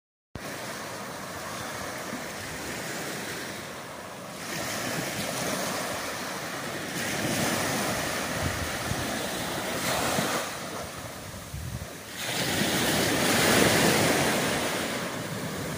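Small waves breaking and washing up a sandy beach, the surf swelling and easing several times and loudest near the end, with wind on the microphone.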